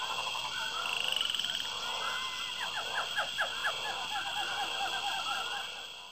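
A chorus of frogs calling: many overlapping short, rapidly repeated notes and trills over a steady high-pitched drone.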